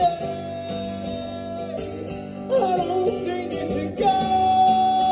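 Live acoustic band: a man's lead voice sings long held notes over several strummed acoustic guitars and drums.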